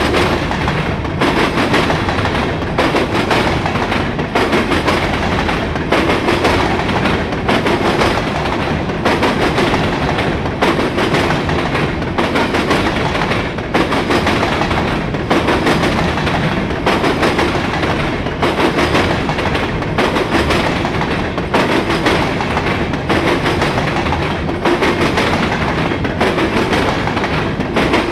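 CSX grain train's covered hopper cars rolling past close by: a loud, steady rumble and rattle of steel wheels on rail, with a regular clatter about once a second as wheel sets cross the rail joints.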